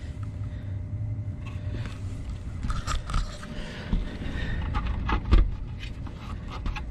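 A removed Carrier EcoBlue fan wheel and housing being handled and shifted by gloved hands: scraping and scattered clicks and knocks, the loudest knock about five seconds in, over a steady low hum.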